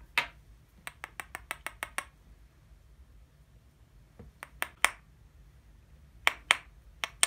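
Sharp light clicks and taps from a firecracker being handled in a small plastic tub on a pocket digital scale: a quick run of about eight clicks around a second in, then a few scattered clicks in pairs later on.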